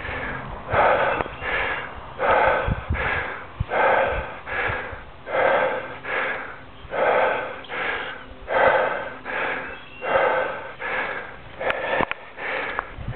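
A person breathing hard and rhythmically, out of breath from the uphill climb: a loud rushing breath about every three-quarters of a second, with stronger breaths alternating with weaker ones.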